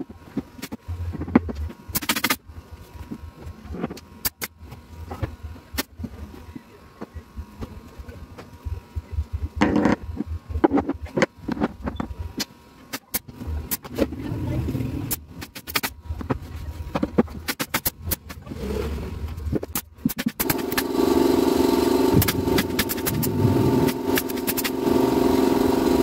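Hammer knocks and sharp taps on plywood cabinet panels, scattered and irregular. A louder, steady motor drone starts about twenty seconds in.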